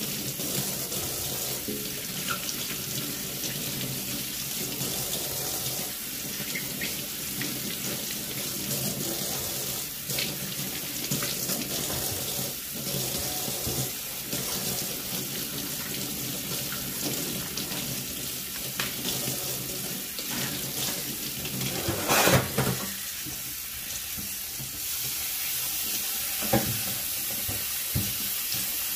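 Kitchen faucet running steadily onto taro stems in a stainless steel sink as they are rinsed by hand, with a brief louder burst about three-quarters of the way through and a few short knocks near the end.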